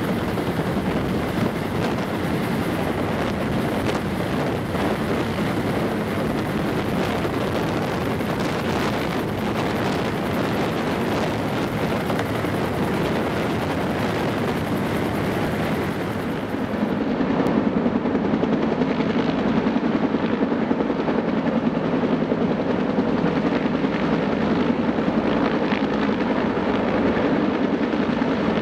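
Bell UH-1H Huey helicopter's T53 turboshaft and two-blade rotor running steadily close by. About seventeen seconds in the sound turns louder and duller.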